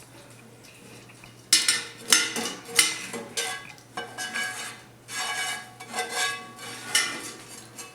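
A metal utensil clanking and scraping against cookware. After about a second and a half comes an irregular series of sharp clanks, roughly one every half second to a second, with a couple of longer scrapes near the middle.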